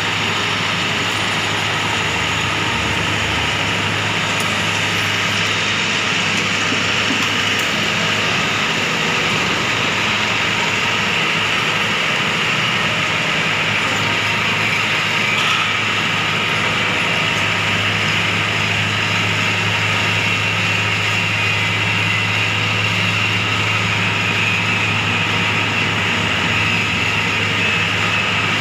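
Rice combine harvester's diesel engine running steadily at a constant speed, with a high-pitched whine over the engine hum.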